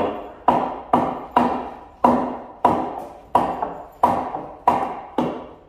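Hammering on wood: a steady series of about ten blows, roughly one and a half a second, each ringing briefly as a board is knocked into the workbench frame.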